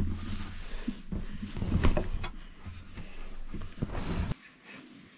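Handling noise from a shotgun being held and worked: clothing rustle and low rumble with several sharp knocks and clicks. It stops abruptly about four seconds in, leaving only faint background sound.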